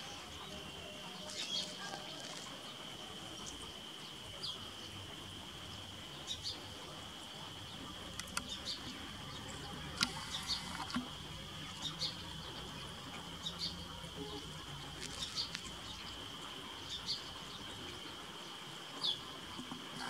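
Steady high-pitched insect drone, like cicadas or crickets, with scattered short high bird chirps and a few sharp ticks over it, the sharpest about halfway through.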